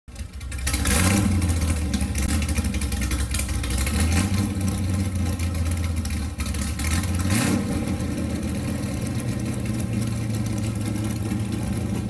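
A car engine idling steadily, blipped up in revs twice: about a second in and again about seven and a half seconds in.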